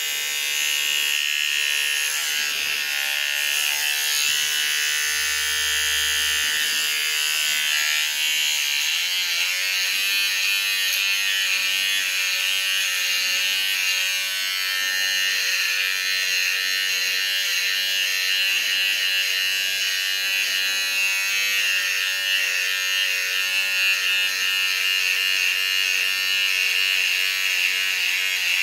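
Electric beard trimmer buzzing steadily as it is run over the beard along the jaw.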